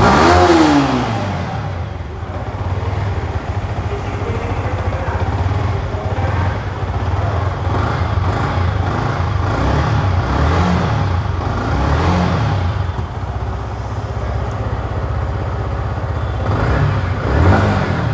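2023 Yamaha R15M's 155 cc single-cylinder four-stroke engine idling through its stock exhaust, with throttle blips. A sharp rev right at the start falls back to idle over a second or so, shorter blips come around ten and twelve seconds in, and two more near the end.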